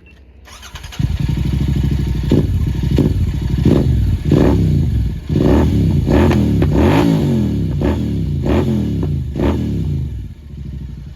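Motorcycle engine being revved in a series of quick throttle blips, about ten sharp rises and falls in pitch, before dropping back toward idle near the end.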